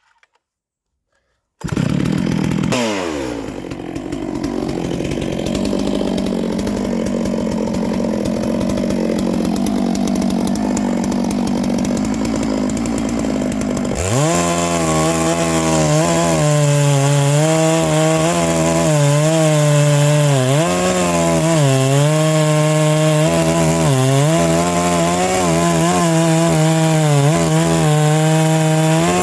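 Neo-Tec NS892 92cc two-stroke chainsaw cutting wood at full throttle. It starts after a moment of silence. Later its engine note dips and recovers again and again as the chain bogs into the wood and frees up.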